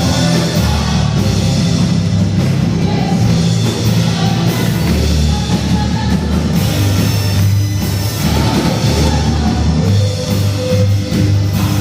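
Live church worship band playing a rock-style praise song, with singing over strong, steady bass.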